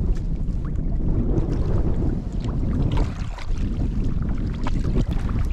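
Strong wind buffeting the microphone with a heavy, gusting rumble, over small splashes of water from a paddled canoe.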